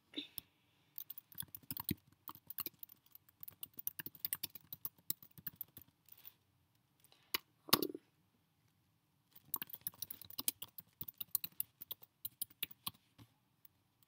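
Typing on a computer keyboard: two quick runs of keystrokes with a pause between them, broken by one brief louder sound about halfway through.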